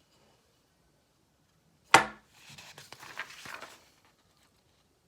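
Items being handled on a table: a sharp knock about two seconds in, as something is set down, then a second or so of irregular rustling and handling noise.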